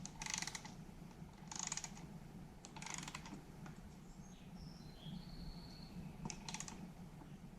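Faint clicking and rattling of small parts and tools being handled, in four short bursts, over a steady low hum.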